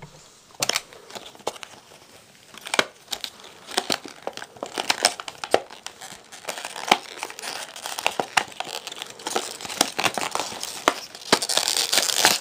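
Earphone retail packaging, a cardboard box with a plastic window, being handled and opened by hand: scattered clicks and crinkling, getting denser and louder into a longer rasp near the end as the insert is slid out.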